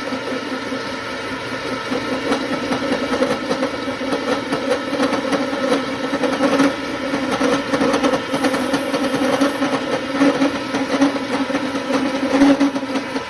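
Milling machine spindle turning a 4-inch indexable face mill with round inserts through a face cut on a rough steel block at slow speed: a steady hum with a fast, grainy chatter from the inserts biting the steel. The inserts have just been set to the same height, so this is the test cut.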